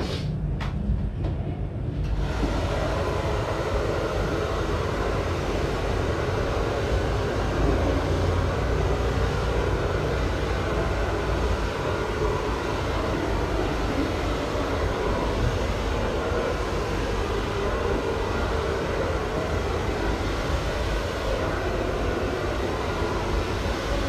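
Hand-held hair dryer blowing with a steady rush of air and motor hum, switched on about two seconds in.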